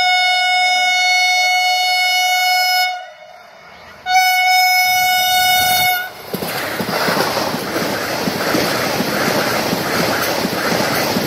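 Vande Bharat Express electric trainset sounding its horn in two long single-note blasts, the second one shorter. About six seconds in, it rushes past at speed, with loud wheel-on-rail and wind noise and a regular rhythmic clatter of the wheels.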